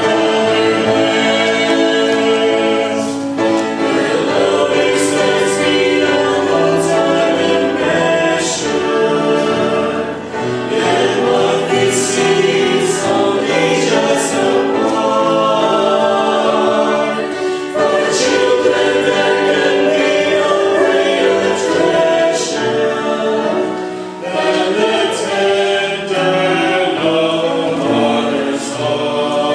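Small mixed vocal ensemble of two women and three men singing a Christian song in harmony at microphones, the voices holding long notes together.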